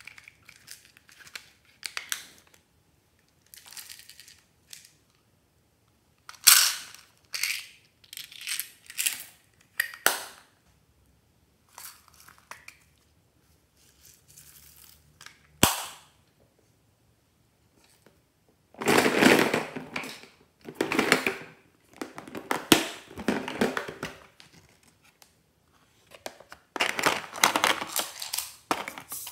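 Hard plastic toys and toy cases being handled and opened: scattered clicks, rattling and rubbing of plastic, with one sharp snap about halfway and longer, louder stretches of rattling in the second half.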